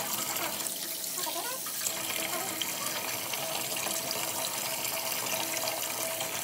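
Kitchen tap running steadily into a stainless steel sink, the stream splashing over hands as they rinse under it.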